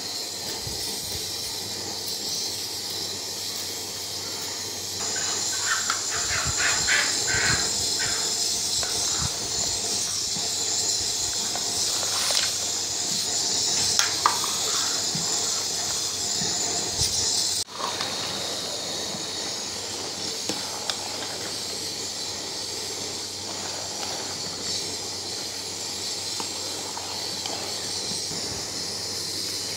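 Large aluminium pot of mutton stock and rice boiling on the stove, giving a steady hiss that grows louder a few seconds in. A steel ladle clinks and scrapes against the pot now and then.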